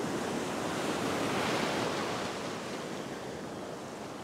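Ocean surf breaking and washing over the shallows, a wave swelling about a second or two in and then easing off.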